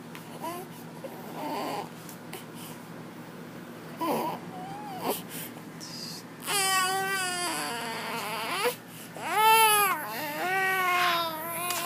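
High-pitched crying: a few short faint whimpers, then three long wavering wails in the second half, the middle one the loudest.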